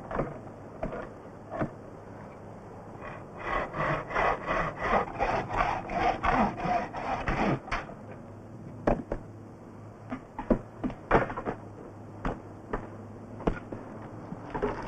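Hand bow saw cutting a log on a wooden sawhorse: a run of quick back-and-forth strokes, about three a second, lasting about four seconds. After that come scattered sharp wooden knocks.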